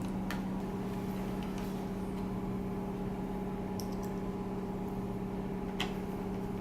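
Steady low background hum with a few faint, short clicks.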